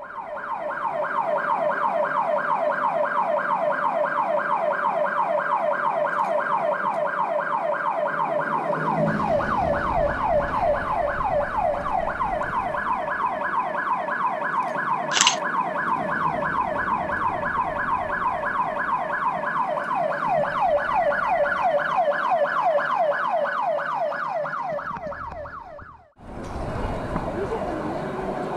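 Electronic siren in a rapid yelp, its pitch sweeping over and over at about four to five sweeps a second with a steady level. It fades out near the end, and there is a single sharp click about halfway through.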